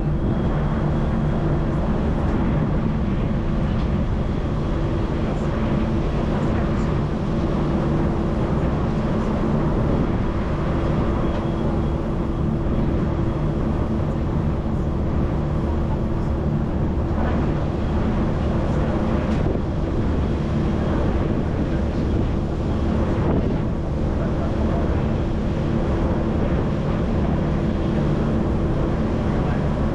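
Passenger ferry's engines running steadily, heard from on board: a constant low drone with several steady hum tones under a wash of noise.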